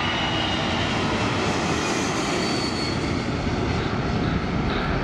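The four Pratt & Whitney F117 turbofan engines of a C-17A Globemaster III at takeoff power as it climbs away from a short takeoff: a steady jet roar with a faint high whine.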